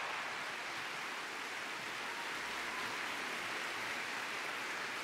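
Audience applause, blended into an even, steady hiss with no separate claps standing out.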